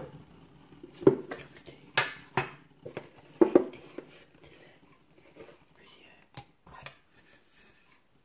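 Knocks and clinks of a metal tea tin and its lid being handled over a ceramic mug, with several sharp taps in the first few seconds, then softer small rattles.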